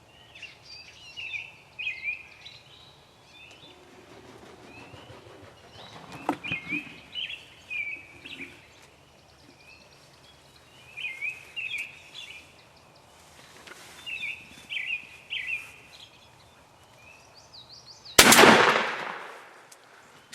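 Small birds chirping off and on, then a single loud gunshot about 18 seconds in that dies away over a second or so: the shot that kills a wild turkey.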